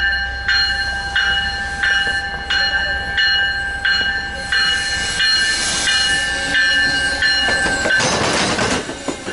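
MBTA commuter rail train led by a bilevel cab car approaching and passing close by, with a repeating ringing tone about every two-thirds of a second until the cab goes by. From about eight seconds in, the bilevel coaches' wheels clatter over the rail joints.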